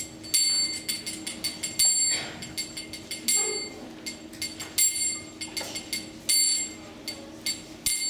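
Small brass hand cymbals (kartals) struck lightly and irregularly, each strike ringing briefly at the same bright pitches, over a faint steady hum.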